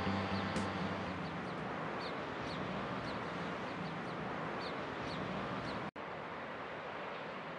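Outdoor ambience: a steady rush with small birds chirping again and again in short, high calls. The sound drops out abruptly about six seconds in, and a slightly quieter steady rush follows.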